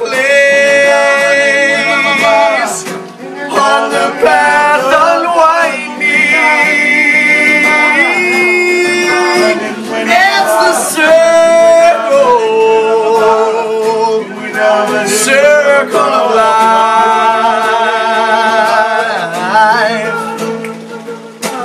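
A man singing solo over a strummed acoustic guitar, with long held notes that waver and gliding vocal runs between them.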